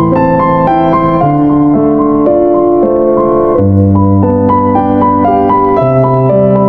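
Background piano music, a slow melody over held bass notes.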